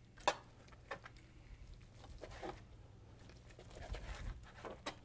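Kitchen knife slicing through cooked turkey thigh meat on a cutting board: a few faint, separate cuts and clicks of the blade over a low steady hum.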